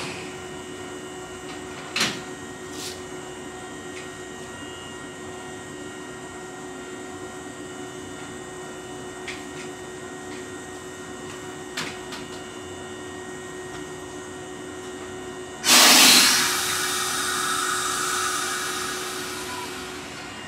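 Stopped electric train humming steadily at the platform, with a couple of single clicks. About three-quarters of the way through comes a sudden loud burst of compressed air being let out, which fades away over about four seconds.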